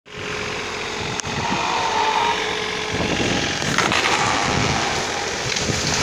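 Compact excavator's diesel engine running steadily, with a sharp click about a second in and a short burst of clatter near the four-second mark.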